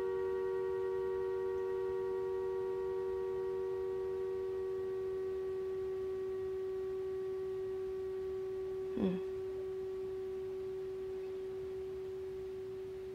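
Humming top spinning and humming one steady tone with fainter overtones above it, fading slowly as the top slows down. A brief short sound cuts in about nine seconds in.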